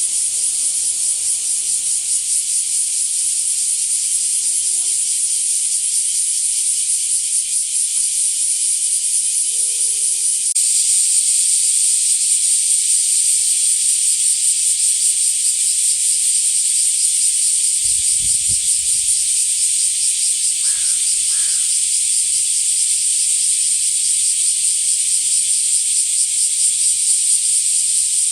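Chorus of cicadas: a loud, continuous, high-pitched shrill with a fast pulsing texture, growing louder about ten seconds in.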